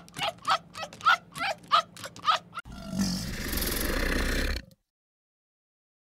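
A fox's short yelping calls in a quick series, about three a second. About two and a half seconds in they give way abruptly to a crocodile's low, rumbling hiss, which lasts about two seconds and then cuts off to silence.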